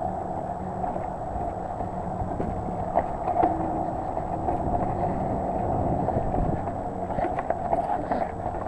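Mountain bike riding down sandstone slickrock: a steady rumbling ride noise of tyres on rock and moving air, with knocks and rattles as the bike goes over bumps, a couple about three seconds in and a cluster near the end.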